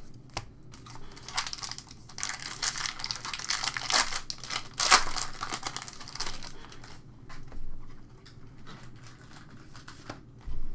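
Plastic wrapper of a pack of baseball trading cards crinkling and tearing as it is ripped open by hand, loudest about four to five seconds in. A soft thump near the end.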